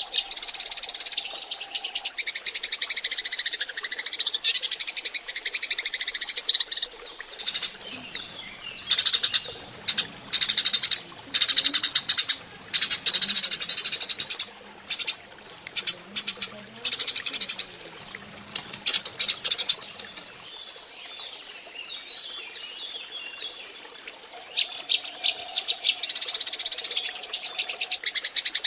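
Eurasian tree sparrows chattering as a flock: dense runs of rapid high chirps, thinning to scattered bursts through the middle and building back near the end. It is a lure recording for drawing sparrows in.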